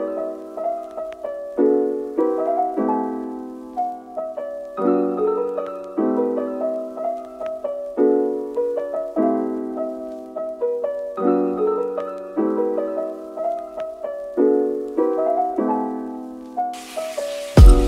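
Gentle solo piano music, a repeating pattern of soft chords under a melody. Near the end a loud rushing noise cuts in over it.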